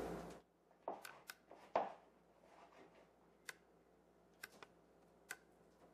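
Faint, scattered soft taps and paper rustles of crumbly dough pieces dropped by hand onto a parchment-lined sheet pan, a cluster of them in the first two seconds, then only a few isolated clicks about a second apart.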